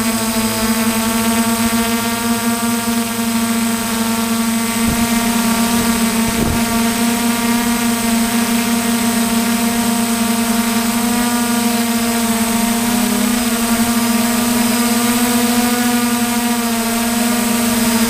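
Steady motor-and-propeller hum from the aircraft carrying the camera, one even pitch with a stack of overtones.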